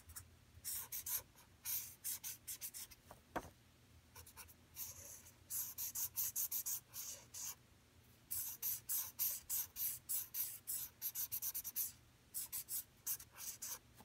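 Felt-tip marker scratching across paper in quick back-and-forth shading strokes, in runs of rapid strokes separated by short pauses, with one light tap a little over three seconds in.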